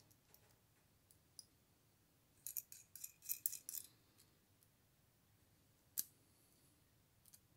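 Steel outside spring calipers being handled, the adjusting nut turned on its threaded screw: a quick run of small metallic clicks about a third of the way in, then one sharp click later.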